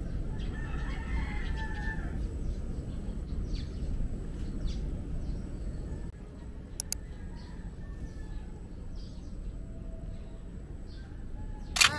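A rooster crowing once near the start, with a few fainter calls later, over a steady low rumble. A sharp click just before the end.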